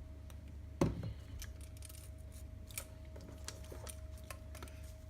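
Camera strap and its buckle being handled while the strap is threaded through: a sharp knock about a second in, then a scatter of small clicks and taps.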